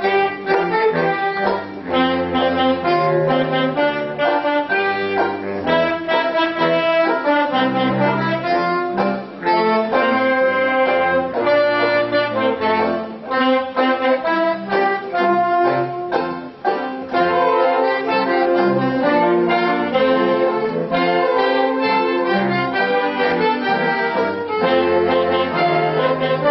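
A large ensemble of saxophones plays a piece together, several parts sounding at once in a steady rhythm.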